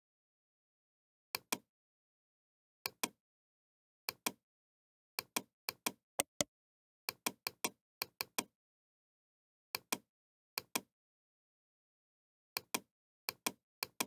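Computer mouse clicking, mostly in quick double clicks, a dozen or more spread unevenly with dead silence between them.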